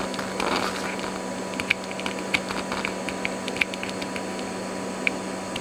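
Small, irregular clicks and ticks of metal side cutters against the metal deck plate of a Sony Walkman cassette mechanism as a tiny metal rivet is worked at, about a dozen light taps spread over a few seconds.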